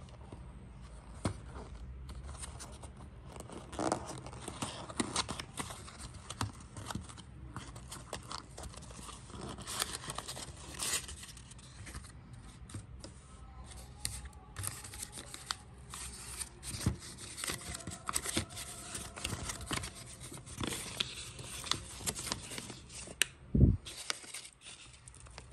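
Paper packaging being handled: a small cardboard gift box opened and pink tissue paper unfolded and crinkled, with many small irregular crackles and rustles. A dull thump near the end is the loudest sound.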